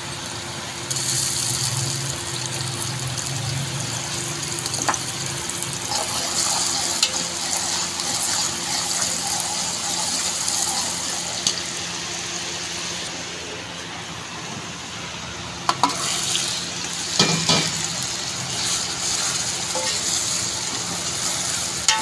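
Green chilli and garlic paste and onions sizzling as they fry in hot oil in an aluminium pot, with a metal ladle stirring. The sizzle grows louder about a second in, as the paste hits the oil, and there are a few sharp knocks of the ladle against the pot near the end.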